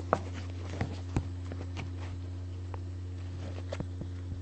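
Camera handling noise: scattered knocks and rubbing clicks as the camera is moved against a cotton T-shirt and touched by a hand, over a steady low hum.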